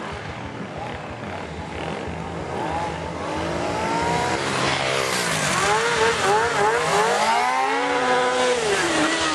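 Stunt motorcycle engines revving, the pitch swinging up and down in quick repeated throttle blips and growing louder about halfway in, over a hiss of spinning tyres.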